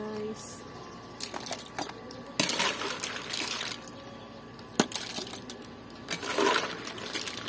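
Metal slotted ladle scooping mussels and crabs out of broth in a large metal wok: shells clattering and the ladle knocking against the pan, with the broth splashing. Several sharp clinks, the loudest about two and a half seconds in, and short bursts of liquid sloshing.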